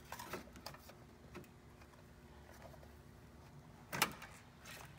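Faint handling noises of a wire and a straightened coat-hanger rod being worked through a rubber door boot: light ticks and rustles, with one sharper knock about four seconds in.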